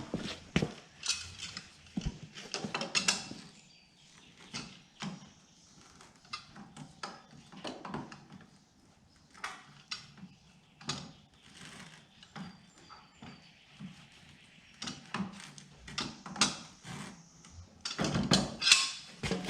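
Irregular clinks, clicks and knocks of hands and parts working on a lawn tractor engine as a new oil filter is fitted and screwed on, busiest at the start and again near the end.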